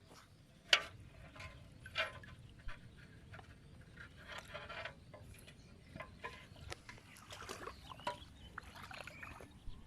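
Intermittent small water splashes and handling noises as a fishing net is worked in shallow water, with a few sharp clicks, the sharpest just under a second in.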